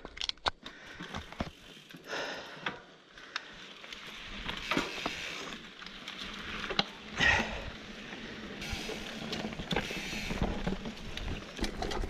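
Mountain bike being ridden off along a sandy dirt trail: a run of sharp clicks as it sets off, then tyre noise on the dirt with the rattle and knocks of the bike's drivetrain and frame, the strongest knock about seven seconds in.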